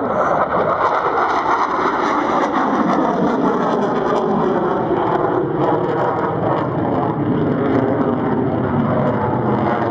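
Saab J35J Draken fighter's afterburning Volvo RM6C turbojet passing overhead in a display flight: a loud, continuous jet rush whose tone sweeps slowly downward as the aircraft goes by.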